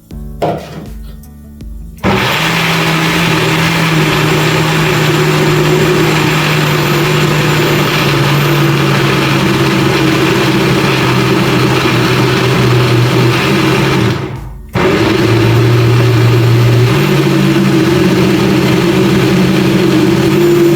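Electric blender running, blending chopped tomatoes, onion, garlic and ginger with a little water into a sauce base. It starts about two seconds in, stops briefly about two-thirds of the way through, then starts again.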